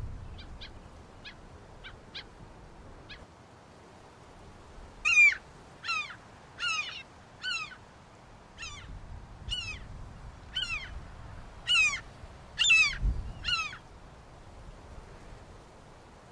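A bird calling a series of about a dozen loud, short calls, each gliding down in pitch, spaced a little under a second apart, after a few faint short notes.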